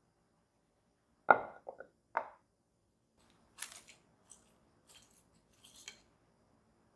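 A few knocks as a bundt pan is set down on the counter, the loudest about a second in, then plastic cling film crinkling in several short bursts as it is stretched and pressed over the pan.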